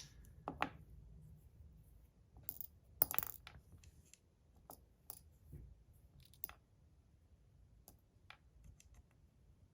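Small ceramic balls clicking against a slider fidget as they are fitted in one at a time: scattered light clicks about a second apart, the sharpest few about three seconds in.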